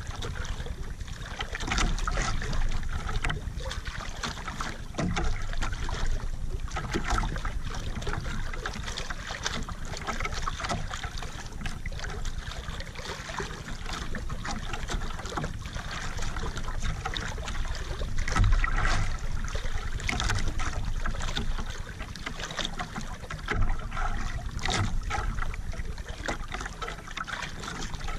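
Sea water splashing and lapping against the side of a small outrigger canoe, irregular, with a few louder splashes now and then.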